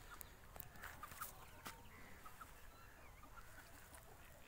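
Near-silent outdoor ambience with faint short bird calls and a few soft clicks.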